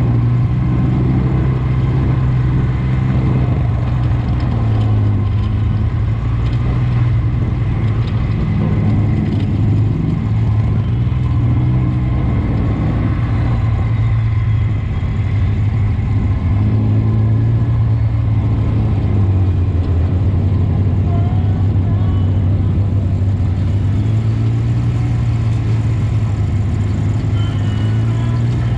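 Off-road vehicle's engine running under way, steady in pitch with small rises and dips as the throttle changes.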